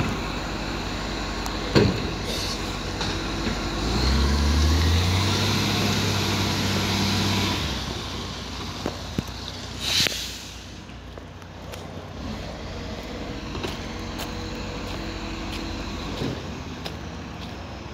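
Iveco ACCO garbage truck's diesel engine running, with a sharp clunk about two seconds in. The engine then revs up in rising steps as the truck pulls away, a short air-brake hiss comes about ten seconds in, and the engine grows fainter as the truck moves off.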